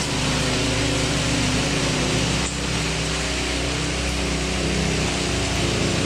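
Remote-control double-pan concrete power trowel running steadily: its small 6.5 hp engine hums at constant speed while the spinning trowel pans scrape over the fresh concrete.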